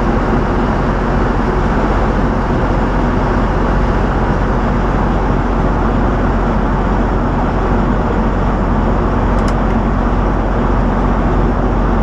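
Semi-truck running down the road: steady engine and road noise with a constant low hum, and a faint click about nine and a half seconds in.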